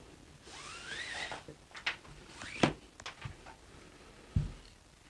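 Paracord being pulled and slid around the wooden dowels of a monkey fist jig: zip-like rasps of nylon cord drawn through, rising in pitch, with a few light clicks and a soft low knock near the end.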